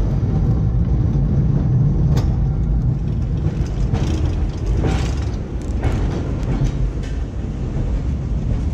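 Vintage electric streetcar rolling slowly along its track into the carbarn: a steady low rumble of wheels and running gear on the rails, with scattered sharp clicks and knocks as it goes.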